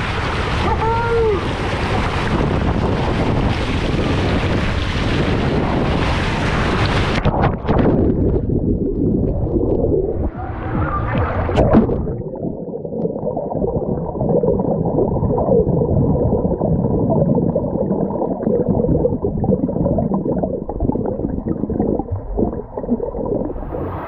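Water rushing loudly past a body-held camera as a rider slides down an enclosed fiberglass waterslide, ending in a splashdown into the pool about seven seconds in. After that the sound is muffled underwater churning and bubbles, with a brief brighter surge of bubbles between about ten and twelve seconds in.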